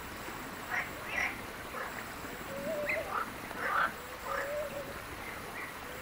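European bee-eaters calling: short, liquid chirps repeated irregularly, several a second at times.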